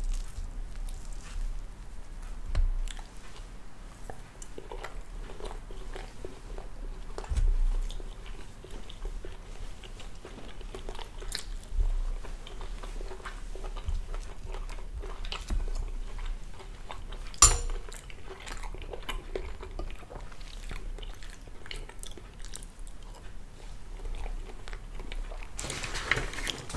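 A person chewing and eating soft pancake close to the microphone, with wet mouth sounds and small clicks throughout. A single sharp click stands out about two-thirds of the way through.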